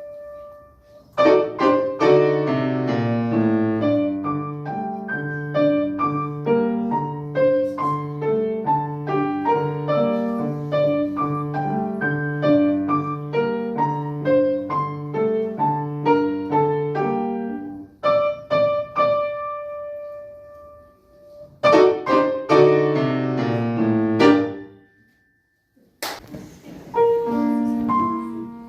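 Solo piano playing a piece in steady, even notes, with a pause and a held note partway through. Near the end it goes quiet, a sharp click sounds, and playing starts again.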